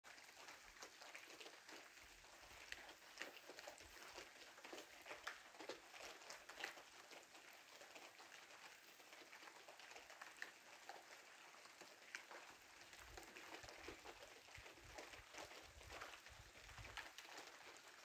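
Heavy rain falling, heard faintly: a steady hiss of rain with many individual drops ticking and pattering through it.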